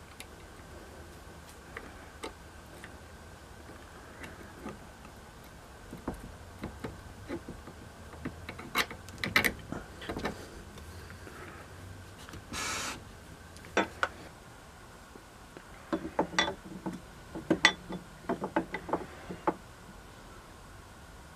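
Small metal clicks, taps and clinks of the cast-iron Acme staple binder's parts being handled and fitted during reassembly, with a brief scrape a little past the middle and a quick run of clicks near the end.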